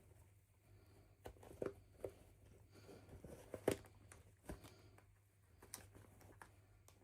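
Faint, irregular clicks and taps, with brief crinkling, from small plastic toys and packaging being handled, over a low steady hum.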